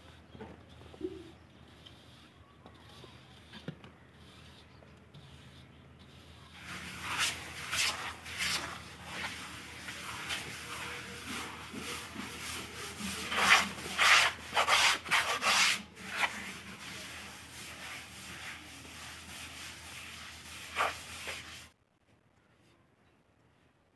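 A plasterer's float rubbed in quick back-and-forth strokes over fresh cement plaster on a brick wall, a rough scraping sound, as the plaster is worked smooth. It starts about seven seconds in, after a few faint scrapes, and stops abruptly near the end.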